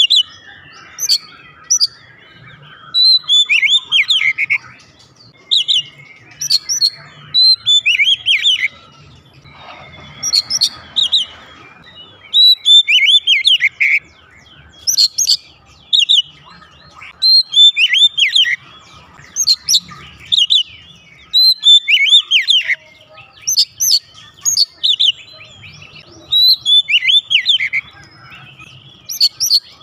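Oriental magpie-robin singing loudly and continuously. Varied phrases of clear whistles and quick sweeping notes come every second or two with short pauses between them.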